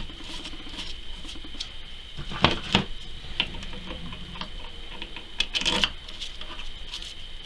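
Light metallic clicks and clinks of bolts and nuts being handled and threaded by hand on a rear wheel-bearing knuckle, with two louder bursts of clinking about two and a half and five and a half seconds in.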